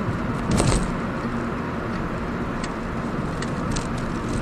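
Car driving, heard inside the cabin: a steady low road and engine rumble, with a few light clicks or jingles over it.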